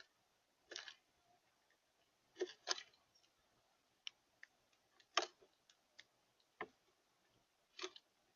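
A dozen or so short, sharp clicks and taps at irregular intervals, a few of them doubled, with near quiet between.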